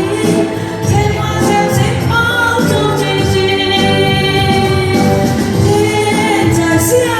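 A slow Chinese pop ballad playing, with a sustained melody line held over its accompaniment.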